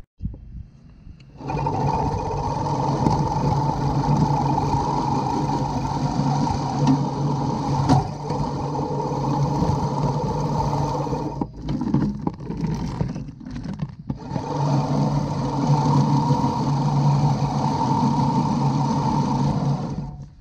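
Sun Joe MJ502M 20-inch manual reel mower being pushed through grass, its spinning reel blades making a steady whir as it cuts. The whir starts about a second and a half in, breaks off for a few seconds partway through, then picks up again.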